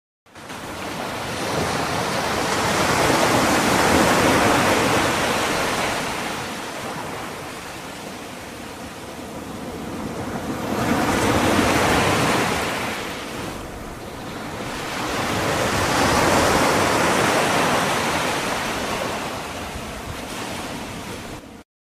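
A rushing noise like ocean surf or wind, swelling and fading in three long surges and cutting off abruptly near the end.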